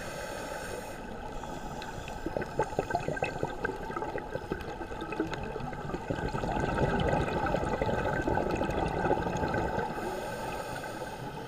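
Underwater gurgling of a scuba diver's exhaled bubbles from the regulator, irregular and crackly, with a louder stretch of bubbling about two-thirds of the way through.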